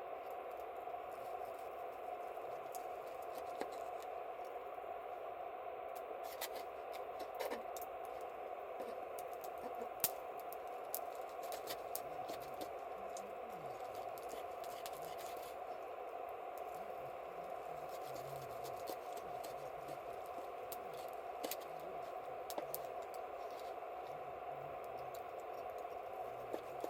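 Wood campfire crackling, with scattered small pops and one sharper snap about ten seconds in, over a steady hiss.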